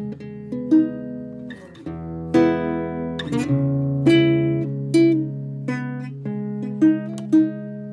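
Background music: acoustic guitar picking a melody of plucked notes over held low bass notes.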